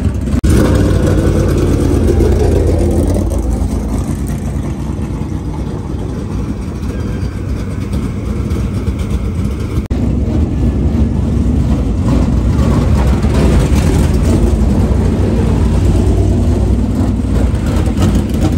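Dirt late model race car engines running on the track, dipping a little in loudness about four seconds in and building again after about ten seconds.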